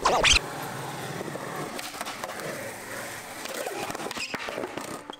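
Skateboard wheels rolling steadily over smooth concrete, with a couple of sharp clacks of the board near the end as the skater pops a flip trick. A short loud burst opens the sound.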